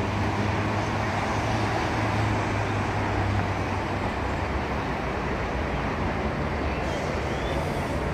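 Steady road traffic noise from cars on a city street, an even rush with a low engine hum that drops a little in pitch about halfway through.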